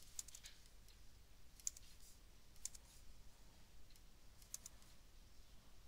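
A few sharp computer mouse clicks, single and in quick pairs, spaced a second or two apart over faint room tone.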